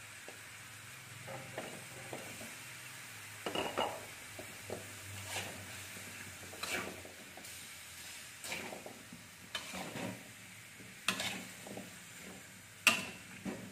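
Metal spatula scraping and knocking against an aluminium wok as chunks of chicken, potato and carrot are stir-fried, in irregular strokes with the sharpest knock near the end, over a faint steady sizzle.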